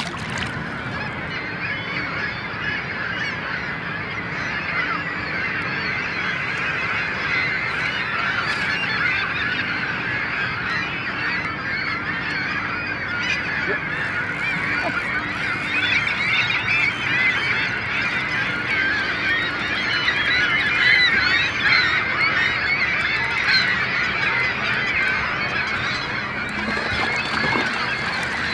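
A large flock of waterbirds calling together: a dense, unbroken chorus of honking cries, getting somewhat louder in the second half.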